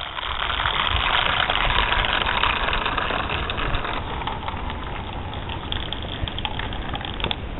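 A bunch of marbles rolling and rattling down a white rain-gutter marble run, a dense clatter of many small clicks. It is loudest for the first few seconds, then thins out.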